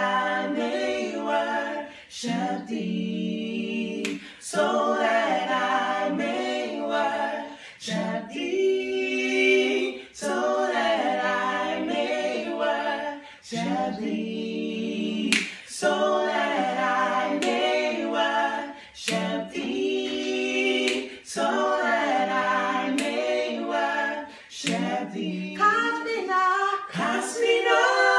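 Three male voices singing a cappella gospel in close harmony, in phrases of a couple of seconds broken by short breaths, with a few sharp clicks between phrases.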